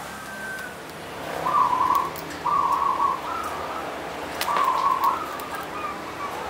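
Zebra dove (perkutut) cooing: three drawn-out, even-pitched coo notes, each about half a second long, with a short note after the second.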